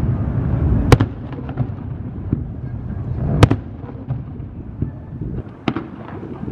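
Aerial firework shells bursting: three sharp bangs, about a second in, about halfway through and near the end, with smaller crackles between them over a steady low background noise.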